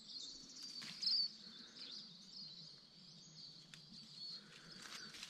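Birds chirping and calling steadily in the bush, with one louder chirp about a second in. Now and then come faint rustles and clicks of bramble leaves and stems as berries are picked by hand.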